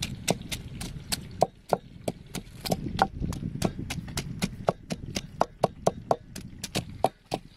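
Wooden pestle pounding shallots, chilies and garlic in a mortar: a steady run of knocks, about three or four a second.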